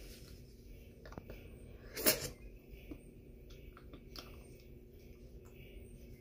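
Faint mouth noises as a person bites down on freshly seated dentures held with cushion-grip adhesive: a few soft clicks and one short hiss about two seconds in.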